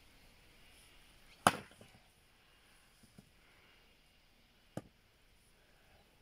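Firewood being split by hand with an axe: one loud, sharp crack of the axe biting into a log about a second and a half in, then lighter wooden knocks further on as the logs are handled.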